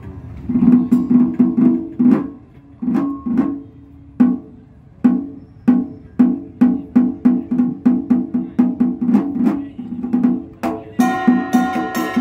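Traditional Vietnamese Cao Đài ritual ensemble (nhạc lễ) opening an instrumental piece: single drum strokes, sparse at first, then quickening to a steady beat of about three a second. Near the end a wind instrument and the rest of the ensemble come in with held notes over the beat.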